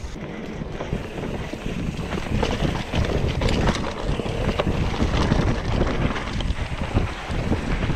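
Vitus Escarpe full-suspension mountain bike riding fast down a dirt singletrack: steady wind buffeting the microphone, with the tyres on the dirt and many short knocks and rattles as the bike bounces over the rough ground.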